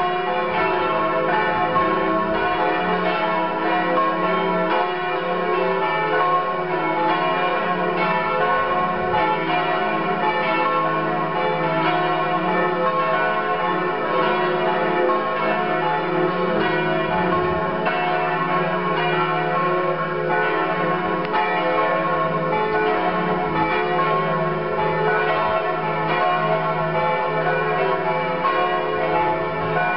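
A peal of several church bells ringing together. The strokes overlap in an unbroken, steady ring.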